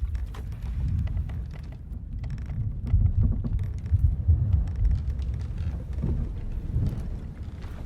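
Sailing-ship ambience: a deep rumble of sea and wind that swells loudest about halfway through, with scattered small creaks and ticks of the wooden ship.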